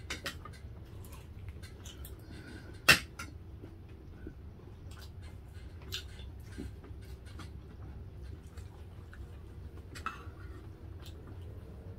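Eating at a table: quiet chewing and small clicks of spoons against plates and bowls, with one sharp clink about three seconds in, over a low steady background hum.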